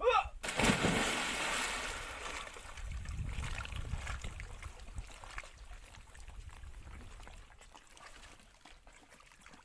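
A brief shout, then a loud splash as a person jumps feet-first into a small muddy pond about half a second in. The water churns and sloshes afterwards and slowly dies away.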